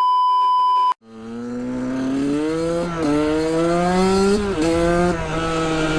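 A steady high beep lasting about a second, then a KTM 125 SX single-cylinder two-stroke engine accelerating hard, its pitch climbing and dropping back twice at gear changes before it holds a steady high speed.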